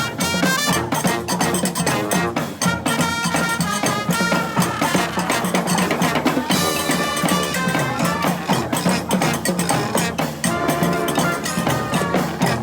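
Brass band playing live: brass instruments carrying the tune over drums and percussion keeping a steady beat.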